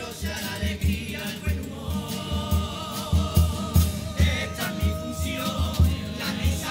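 A Cádiz carnival comparsa performing: the chorus singing together over strummed Spanish guitars and a steady bass-drum beat.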